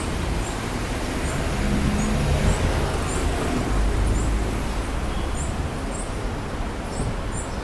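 Small birds chirping in short, high, repeated notes, roughly one or two a second, over a steady low rumble of road traffic.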